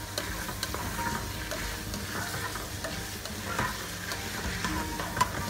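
Sliced potatoes and minced pork sizzling in hot oil in a pot while a spatula stirs them, scraping and knocking against the pot, with one sharper knock about five seconds in.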